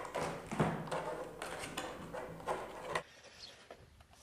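Hands handling a plastic toy RC truck and fitting its body shell back onto the chassis: a run of plastic clicks and knocks on a tabletop. The handling sounds cut off abruptly about three seconds in, giving way to faint outdoor quiet.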